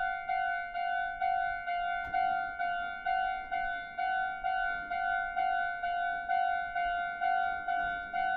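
Japanese railway level-crossing warning signal sounding its steady 'kan-kan' alarm, about two evenly spaced strikes a second at one pitch, each fading quickly: the crossing is closed for an approaching train.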